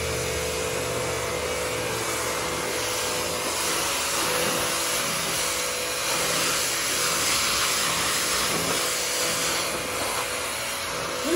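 Sun Joe 3200 electric pressure washer running, its motor and pump humming steadily under the hiss of the water jet spraying onto concrete.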